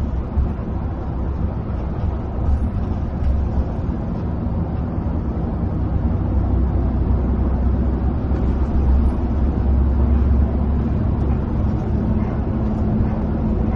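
Coach running at cruising speed, heard from the driver's position: a steady low drone of engine and tyre roar on the road. A humming tone in it grows a little stronger about halfway through.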